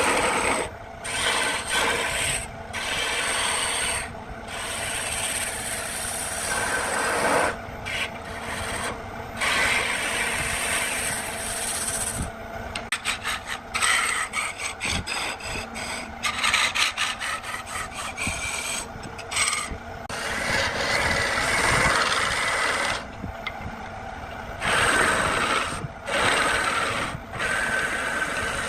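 Cedar spinning on a wood lathe while a turning tool cuts it, a hissing, scraping cut that breaks off and starts again many times as the tool leaves and meets the wood. In the middle stretch the cuts come in quick, choppy strokes.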